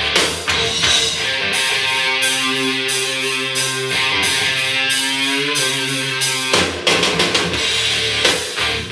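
Rock song with drums and guitar played through a JBL Charge 4 Bluetooth speaker and heard in the room. The beat thins out under a held guitar chord in the middle, and the full drums come back about two thirds of the way through.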